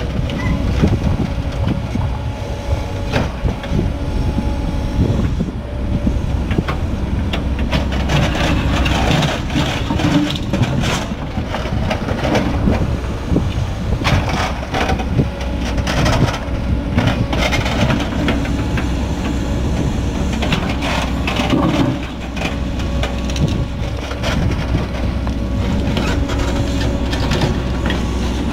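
Cat 428F backhoe loader's diesel engine running under load as the backhoe digs, with the bucket scraping and crunching through rocky soil and rubble in irregular knocks.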